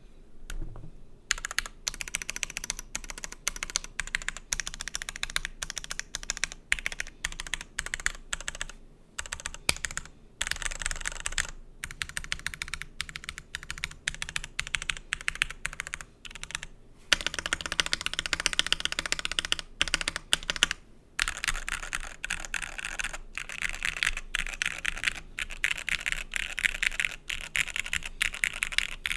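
Typing on a Cannonkeys DevastatingTKL mechanical keyboard with Gateron Milky Yellow Pro V2 linear switches on an FR4 plate, top-mounted, with polyfill inside the case. The keystrokes are steady and quick with a few short pauses, and there is a faster, denser run of typing just past the middle.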